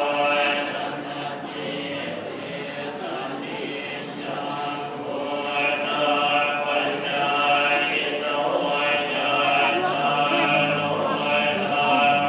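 Thai Buddhist monks chanting Pali verses together in a steady, droning unison, the group voice carrying on without pause.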